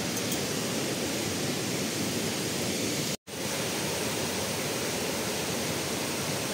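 Waterfall rushing steadily over rock into a pool, an even wash of falling water. The sound cuts out for an instant a little past three seconds in, then carries on unchanged.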